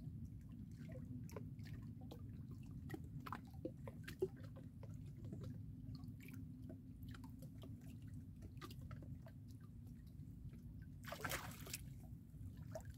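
Faint water sloshing and small splashes from a hooked piau (a small freshwater fish) being played on a pole line, with scattered light clicks over a low steady rumble. About eleven seconds in, a short louder splash as the fish is lifted from the water.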